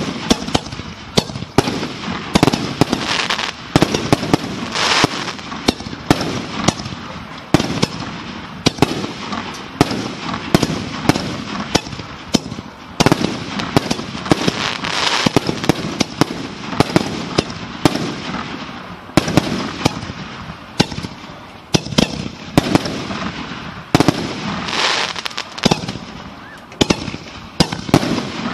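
Fireworks finale: a continuous barrage of aerial shell bursts, sharp bangs coming several a second at irregular spacing, with crackling between them.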